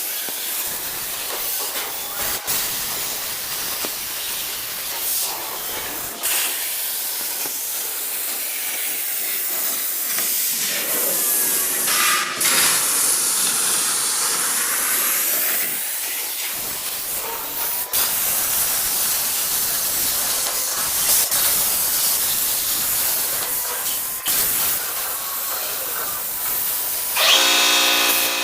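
Steady loud hiss of a CNC plasma cutting torch working through steel sheet, with a few sharp clicks. Near the end a pitched machine hum joins it.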